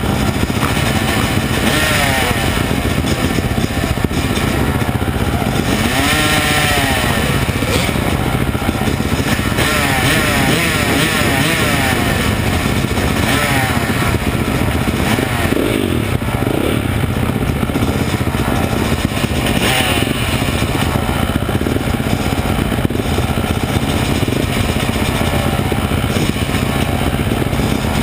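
Several motocross dirt bike engines running together at the starting gate, idling with repeated revs that rise and fall and overlap.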